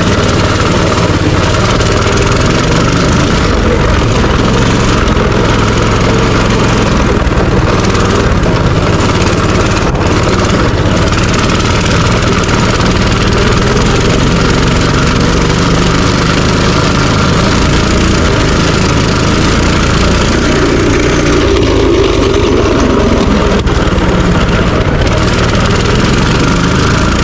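A minibike's small engine running steadily under way, with a loud, even drone and no breaks.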